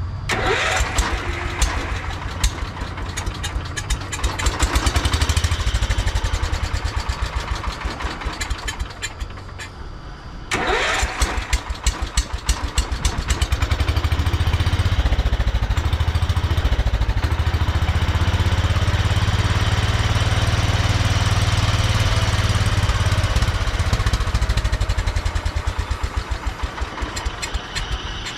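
Riding lawn mower engine running, fading away about ten seconds in, then starting again with a sudden burst and settling into steady running that grows louder for a while before easing off.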